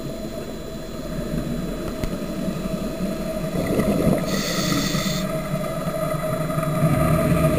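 Scuba regulator breathing heard underwater: a hissing inhale lasting about a second, about halfway through, with bubbling rumble from exhaled air and a faint steady hum underneath.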